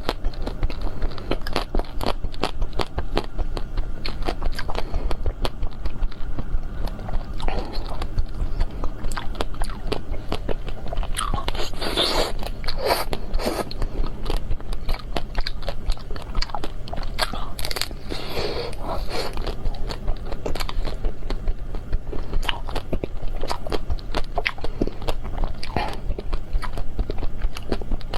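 Close-miked biting and chewing of crunchy ice cream: a continuous run of crisp crackling crunches, with a few louder bites in the middle.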